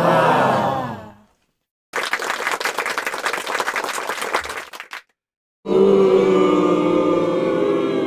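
A run of short stock sound-effect clips with silences between them: a brief voice-like sound, then about three seconds of audience applause, then a crowd of voices holding a sustained cry.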